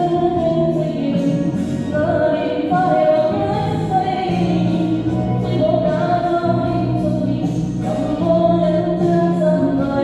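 A singer performing a Chinese pop song over a karaoke backing track, with KTV-style echo on the voice.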